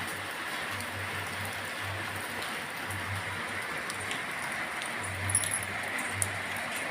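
Steady rain falling in a shower that has eased to a slower fall, an even hiss of drops with a few sharper drip clicks near the end.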